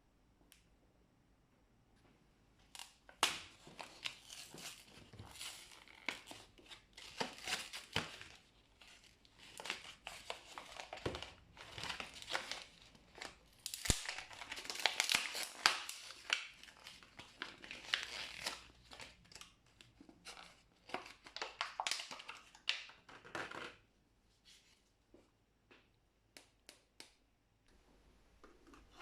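Plastic packaging crinkling and tearing as a package is unwrapped by hand, in irregular bursts of crackle. It dies down to a few light clicks near the end.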